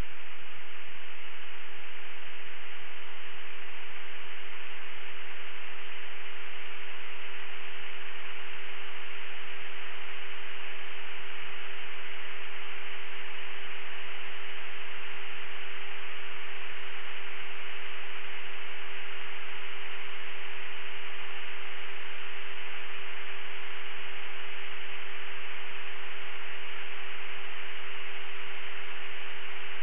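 Steady radio static hiss on a cockpit intercom and radio channel, with a constant hum tone beneath it. This is an open channel with nobody transmitting.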